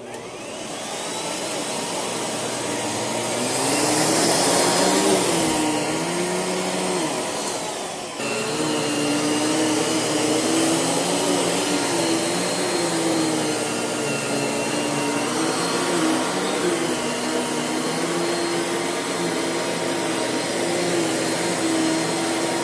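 Miele Dynamic U1 upright vacuum cleaner switched on and running, its motor spinning up at the start. The motor pitch wavers as it is pushed back and forth. It dips briefly about eight seconds in, then picks up again.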